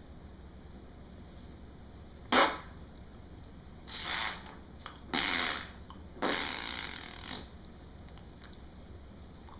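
Four short, noisy rasping bursts about a second apart. The first and shortest is the loudest, and the last lasts about a second.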